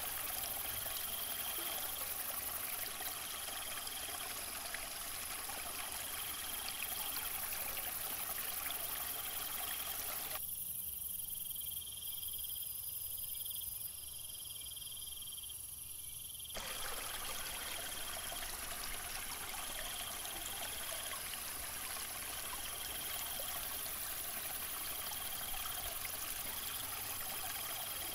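Small waterfall pouring down rocks and splashing into a shallow pool, a steady rush of water. About ten seconds in, the water sound drops away for roughly six seconds, then returns. A faint high chirp repeats every couple of seconds throughout.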